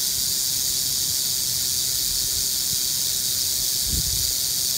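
Timber rattlesnake rattling its tail: a steady, high-pitched buzz with no break, the snake's defensive warning.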